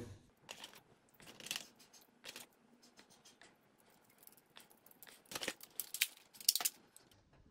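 Light plastic clicks and rattles of a toy Desert Eagle pistol being handled as toy cartridges are pushed into its magazine, with a quick run of louder clicks near the end.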